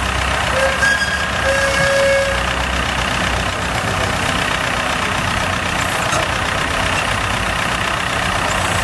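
Engine of a vintage Poclain hydraulic excavator running steadily while its boom is worked. About a second in there are a couple of brief whistling tones.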